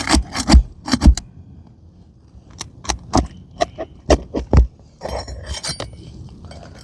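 Roofing hand tools tapping and clinking on metal and shingles, about a dozen sharp, uneven knocks, with a brief scraping stretch about five seconds in.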